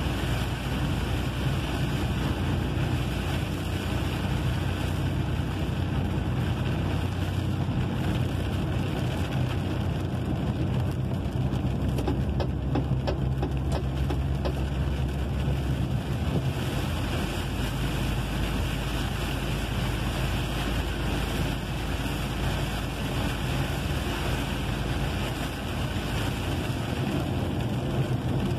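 Inside a truck cab driving through heavy rain: the engine's steady low drone under a constant hiss of rain and tyre spray on the wet highway. The engine note shifts slightly about halfway through.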